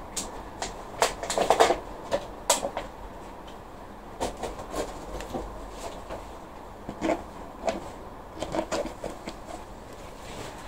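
Irregular clicks, taps and knocks of small plastic plant pots and plastic covers being handled while potting up seedlings, bunched into two busy spells.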